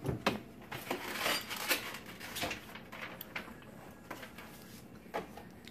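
Wooden spoon knocking and scraping against a plastic mixing bowl as a thick, stiff filling is mashed and stirred, in a run of irregular knocks and scrapes.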